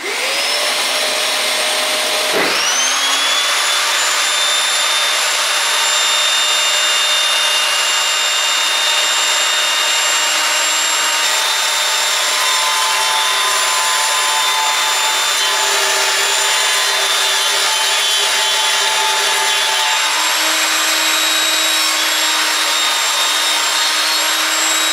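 Evolution RAGE5S table saw running with a noisy motor whine as its blade rips through wood. The pitch dips briefly and climbs back just after two seconds in.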